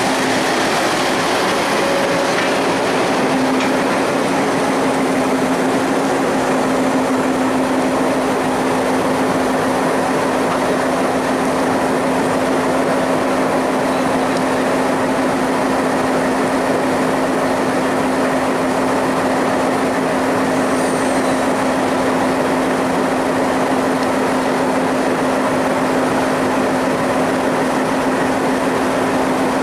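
Diesel locomotive's engine running steadily at idle: a constant drone with a strong steady hum underneath.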